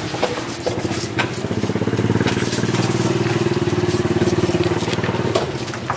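A small engine running steadily with a rapid, even putter, fading near the end. A few sharp clicks sound over it.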